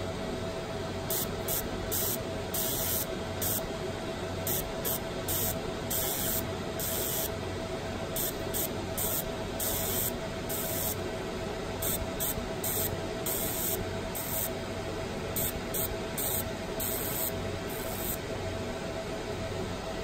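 20 W fiber laser marking machine engraving metal bird rings: short, irregular bursts of high hissing as the beam marks, over the machine's steady hum.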